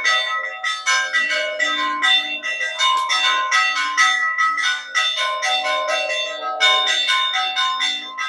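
Church bells rung by hand in a continuous peal, struck quickly one after another at about three or four strokes a second, several bells of different pitch ringing over each other. The peal announces the start of the village fiestas.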